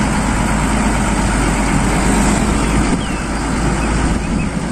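Diesel engine of a three-axle dump truck running steadily as the loaded truck drives slowly and turns.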